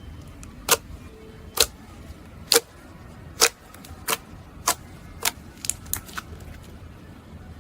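Slime being pressed and poked, making sharp popping clicks roughly once a second. The clicks come quicker together near the end, then stop.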